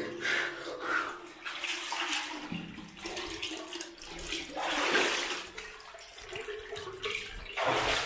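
Feet wading through shallow cave-stream water, with irregular sloshing splashes, the loudest about five seconds in.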